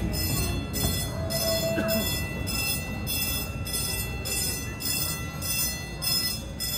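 Park railway passenger cars rolling past and away, their wheels rumbling on the rails. Over it a level-crossing bell keeps ringing about twice a second.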